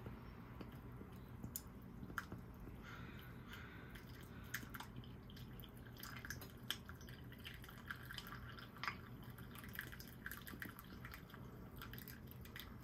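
Faint, scattered light clicks and taps at an irregular pace over a steady low hum.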